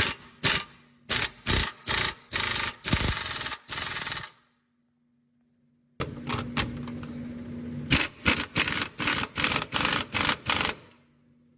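An impact wrench run in a quick series of short bursts, each a fraction of a second, working subframe bolts, with a low steady hum underneath. The bursts stop for about a second and a half in the middle, then start again.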